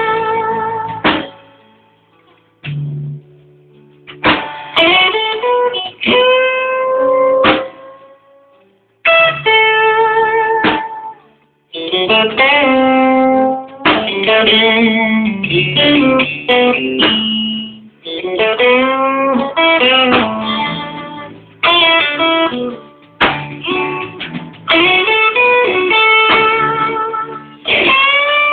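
Live blues band, led by an electric guitar solo of bent, sustained notes. The guitar plays short phrases with brief pauses between them in the first half, then runs on without breaks.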